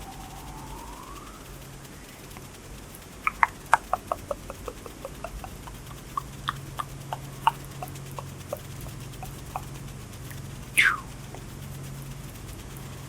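ASMR hand sounds close to the microphone: a run of quick, light clicks and taps from about three seconds in, a few per second, with a sweep that glides back up in pitch at the start and another that slides down in pitch near the end. A steady low hum runs underneath.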